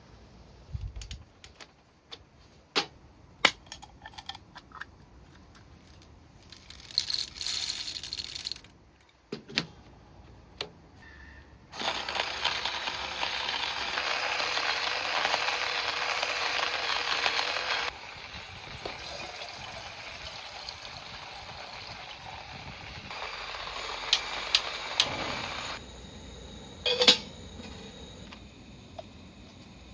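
Handling of cookware and dishes: scattered clicks, knocks and clinks, with one sharp ringing clink near the end. A steady hiss starts about twelve seconds in and cuts off suddenly about six seconds later.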